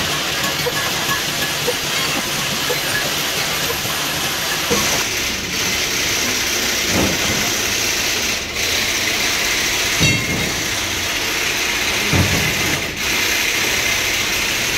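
Milling machine running with a gear-cutting form cutter milling the teeth of a steel spur gear: a steady, dense machining hiss, with a few dull knocks.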